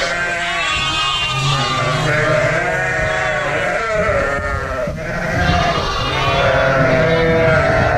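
A flock of ewes and lambs bleating loudly, many calls overlapping, as the ewes search for their lambs and the lambs call back.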